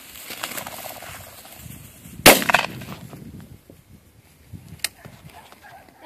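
A game bird flushing out of the grass with a burst of rapid wingbeats, then a single loud shotgun blast a little over two seconds in. A fainter sharp crack follows near the end.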